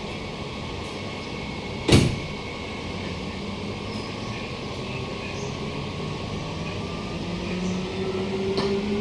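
Inside a Queensland Rail SMU 260 electric multiple unit getting under way: a single sharp clunk about two seconds in, then the traction motors' whine climbing slowly in pitch and getting louder as the train accelerates.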